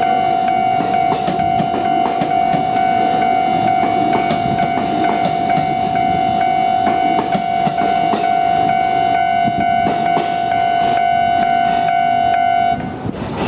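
A Japanese level-crossing alarm rings with a steady high tone while an electric train runs past, its wheels clattering over the rail joints. Near the end the alarm cuts off suddenly as the crossing clears, and the train noise carries on.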